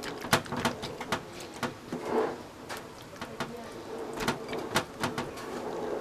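Hands kneading and pressing raw beef steaks in a wet marinade on a china plate, giving a run of irregular squishes and sharp clicks.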